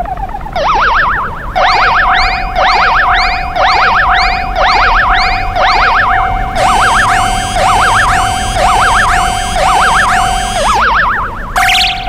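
Japanese railroad crossing warning bell ringing its 'kan-kan' about twice a second, each ring bent into a wobbling, springy 'boing' like a stretched rubber band. A steady tone runs underneath and breaks off briefly near the end.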